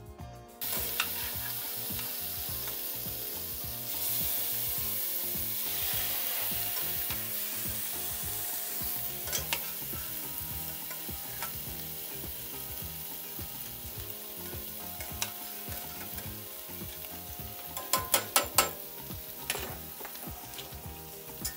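King oyster mushroom slices sizzling steadily as they pan-fry in vegan butter in a skillet. The sizzle starts suddenly just after the beginning and gets louder about four seconds in. Near the end comes a quick run of sharp clicks.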